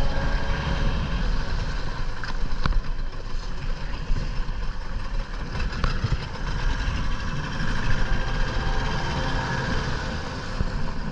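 Steady rumble of wind and choppy sea around a small inflatable boat at sea, with a couple of sharp knocks about two and a half seconds in.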